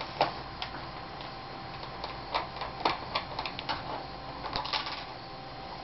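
Small, irregular clicks and ticks of a screwdriver working the cover screws out of an Asus X54C laptop's screen bezel, thickest from about two seconds in.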